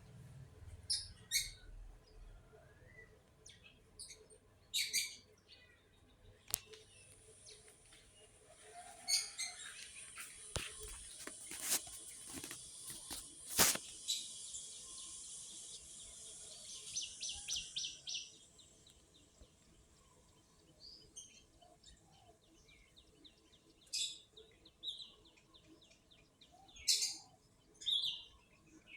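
Birds chirping in short scattered calls, with a steady high hiss for about ten seconds in the middle that ends in a quick run of ticks, and a few sharp clicks.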